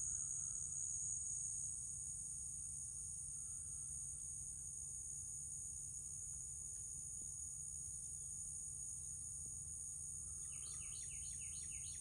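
Faint outdoor ambience: a steady, high-pitched insect trill of crickets or similar insects. Near the end a bird gives a rapid series of short, falling chirps.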